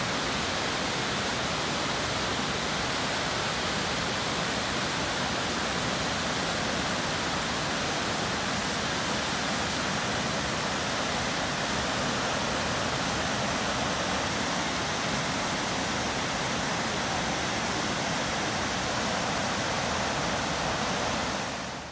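Kepler Cascades on the Firehole River: a waterfall's steady rush of tumbling water.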